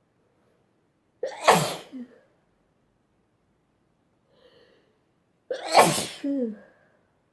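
A girl sneezing twice, about four seconds apart; each sneeze is a sudden loud burst with a short voiced tail.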